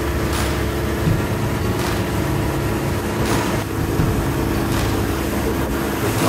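Jet boat's engine running steadily, a low droning hum heard from aboard, with a few short whooshes of hiss over it.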